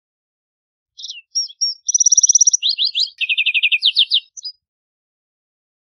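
Lark sparrow singing one song of about three and a half seconds, starting about a second in. It opens with a few short high notes, runs into a fast high trill, drops to lower, slower trills, and ends with a couple of clipped notes.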